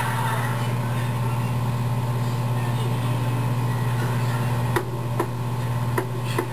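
Steady low electrical hum, with faint voices and a few sharp clicks about five and six seconds in.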